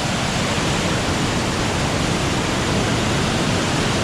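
A powerful waterfall: water pouring down hard with a loud, steady roar.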